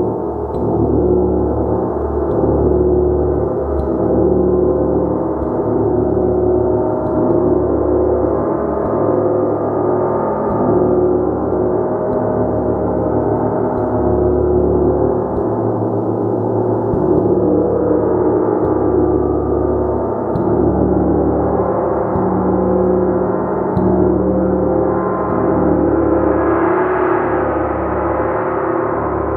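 Gong played continuously: a dense, sustained wash of overlapping ringing tones, kept alive by repeated light strokes that make it swell and ebb, growing brighter near the end.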